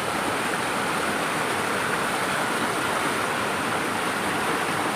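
Waterfall: water falling and rushing as a steady, even noise.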